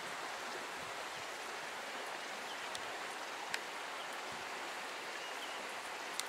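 Steady, even outdoor background hiss, with a few faint short ticks.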